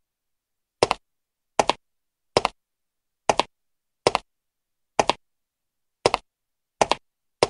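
Footstep sound effect: nine evenly spaced steps, a little under a second apart, each a short double tap, with dead silence between them.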